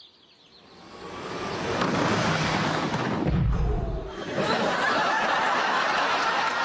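Sitcom studio audience laughter swelling up and holding loud, with a deep explosion boom about three and a half seconds in.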